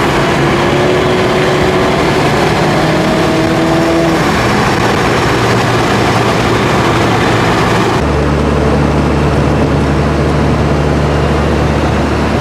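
Mini Cooper JCW driving, with heavy road and wind noise over the engine; the engine note rises slowly over the first few seconds. About eight seconds in the sound changes abruptly to a steady low drone.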